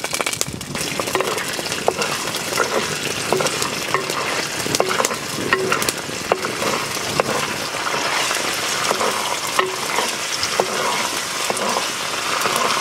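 Whole biryani spices (star anise, cardamom, cinnamon sticks, mace) sizzling in hot oil in a clay pot, a steady hiss full of small sharp pops and crackles. A wooden spatula stirs them against the clay.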